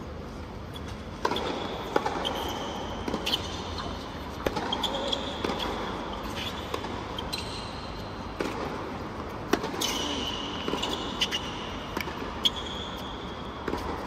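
Tennis rally on a hard court: a racket strikes the ball and the ball bounces about once a second, some hits sharper and nearer than others, over a steady murmur of the crowd. Short high squeaks of shoes on the court come between some of the hits.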